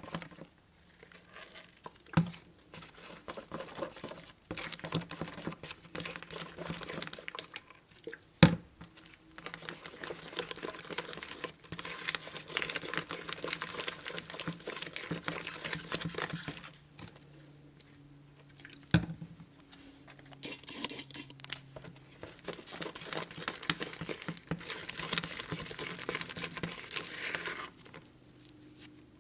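Elmer's glow-in-the-dark glue slime being worked: sticky crackling, squelching and small pops as it is stretched and pressed. A few sharp clicks stand out, about two seconds in, eight seconds in and near the middle.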